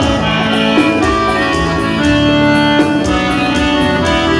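Music: an instrumental passage between sung lines, with held keyboard chords over a steady beat.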